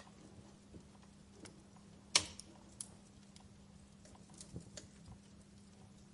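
Wood fire crackling in a fireplace: scattered small pops, with a sharp snap about two seconds in and a smaller one just after, over a faint steady hum.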